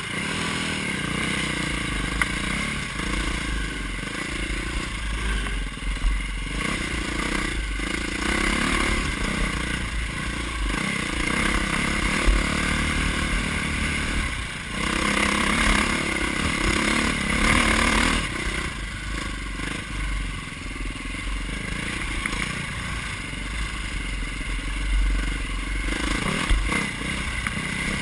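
Orange KTM dirt bike's engine running under changing throttle while riding a rough forest trail, with rattling and clatter from the bike over the bumps. The engine gets louder for a few seconds just past the middle.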